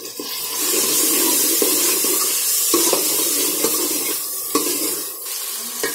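Chopped onion and tomato sizzling in hot oil in a metal pot while a spoon stirs them, knocking against the pot a few times. The sizzle starts suddenly and eases somewhat after the first few seconds.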